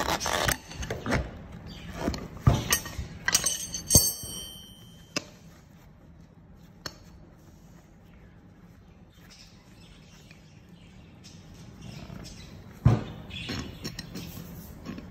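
Steel tire levers clinking and knocking against a small wheel rim as a knobby tire is pried off it. There is a quick run of sharp metal clicks in the first few seconds, one with a short ring. A quieter stretch with faint handling sounds follows, then a loud knock and a second of rubbing rubber near the end.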